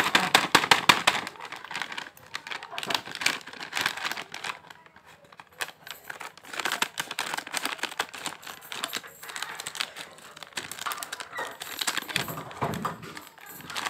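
A foil-lined plastic snack packet crinkling and crackling as it is cut open with scissors and handled. A dense run of crackles comes in the first couple of seconds, with more bursts of crinkling later.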